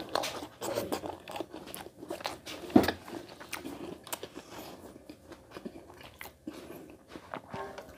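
A person chewing a mouthful of rice and roti with curry close to the microphone: many short mouth clicks, one much louder about three seconds in.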